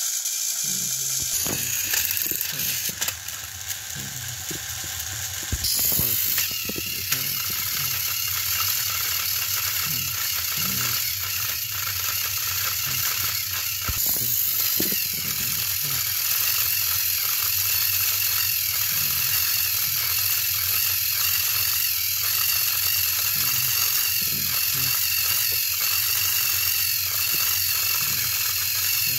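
Battery-powered toy train engines running: a steady motor whir with rattling gears and scattered clicks, growing louder about six seconds in. Two engines push head-on against each other.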